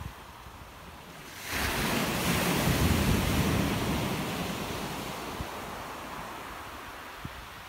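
Sea surf: a wave breaks on the shore about a second and a half in, its wash rising quickly and then slowly fading. Some wind is on the microphone.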